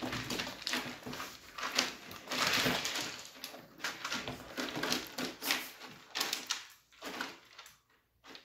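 Wood-pellet litter rustling and clicking as puppies scramble and dig in the litter box, in an irregular run of scratchy crunches that thins out near the end.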